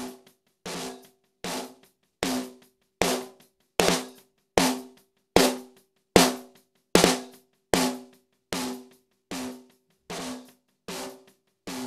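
Heavily compressed snare drum track played on its own, one hit about every 0.8 s, each with a short ring. The hits get louder and punchier toward the middle as the compressor's attack is slowed and lets the transients through, then flatten again as the attack is turned back to fast.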